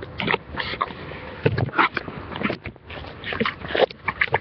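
Handling noise from a webcam being picked up and moved: irregular rustles, scrapes and bumps as hands and clothing brush against its microphone.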